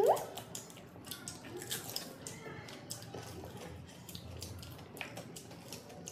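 People eating at close range: chewing, crunching and wet mouth clicks. A short rising vocal exclamation comes right at the start.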